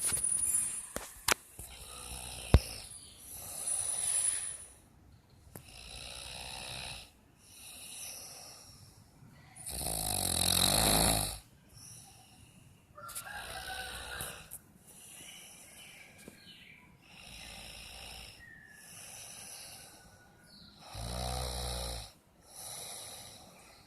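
A sleeping person snoring, one snore about every one and a half to two seconds, some with a faint whistling note. The loudest and longest snore comes about ten seconds in. There is a single sharp click about two and a half seconds in.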